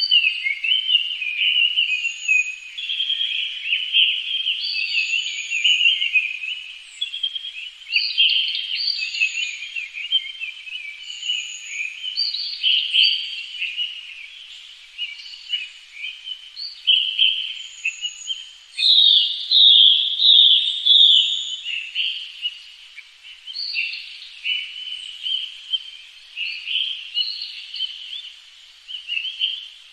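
Several songbirds singing at once in a dense, continuous chorus of chirps and warbles. Over it, a short high whistle repeats about every two seconds.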